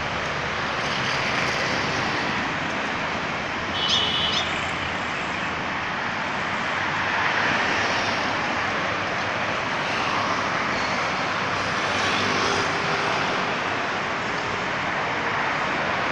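Steady road traffic noise, swelling and fading as vehicles pass close by. A brief high-pitched squeal about four seconds in.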